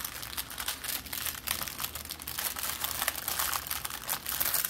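Thin plastic crinkling in a continuous run of quick crackles as hands handle small plastic bags of diamond painting drills on a canvas covered with plastic film.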